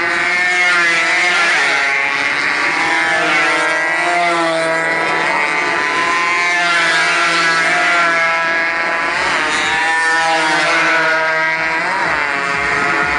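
Several two-stroke racing motorcycles revving hard as they pass close by one after another. Their engine notes overlap and keep rising and falling in pitch.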